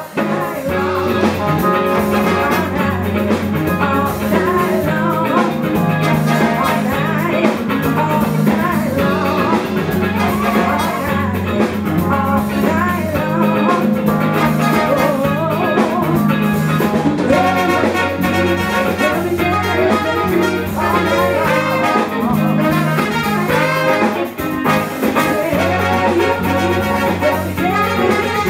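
A live showband playing, with electric bass holding the low end under a brass section.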